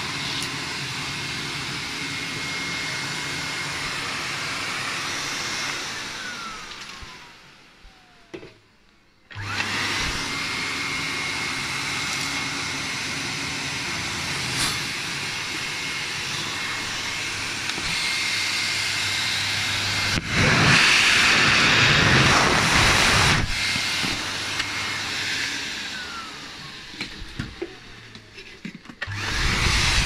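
Canister vacuum cleaner running with a steady whine, then switched off about six seconds in, its motor pitch falling away to near silence, and switched back on a few seconds later. It gets louder and rushier for about three seconds past the twenty-second mark. Later it is switched off again, its pitch falling, and it restarts near the end.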